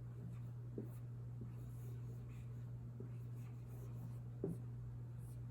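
Faint sounds of writing, with a few light ticks, over a steady low hum.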